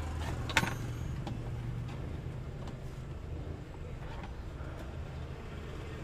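A hard plastic seatbelt trim cover being handled and taken off the retractor mount: one sharp plastic click about half a second in, then a few faint clicks and rustles, over a steady low rumble.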